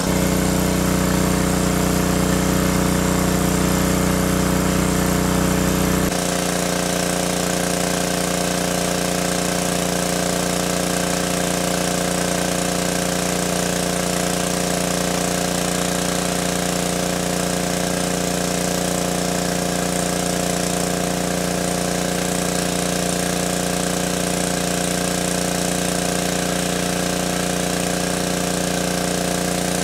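Small engine-driven water pump running steadily as it pumps water out of a stream pool, its outlet spraying a strong jet of water. The sound gets a little quieter and thinner about six seconds in, then stays even.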